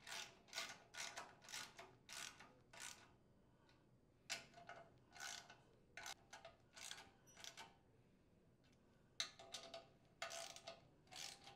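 Socket ratchet wrench tightening screws, faint quick clicking strokes as the handle swings back and forth, in three runs with short pauses between.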